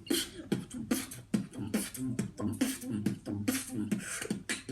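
A person beatboxing: a quick, steady rhythm of mouth-made kick, snare and hi-hat sounds, with low hummed notes between the hits.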